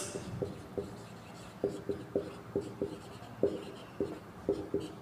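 Whiteboard marker squeaking against a whiteboard as a word is handwritten: a dozen or so short, irregular squeaks, one per pen stroke.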